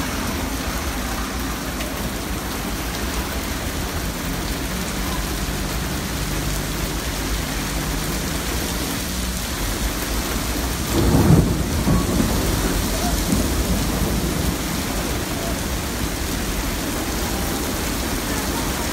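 Heavy rain pouring down on a street, with car tyres hissing through standing water on the road. About eleven seconds in a louder low rumble swells up and fades over a couple of seconds.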